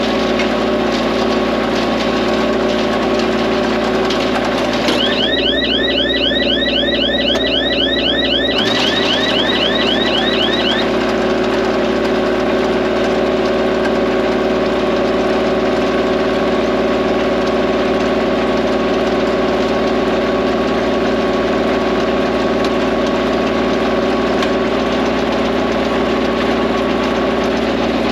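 Tractor diesel engine running steadily. A few seconds in, a rapid run of high chirps, about four a second, lasts for roughly five seconds.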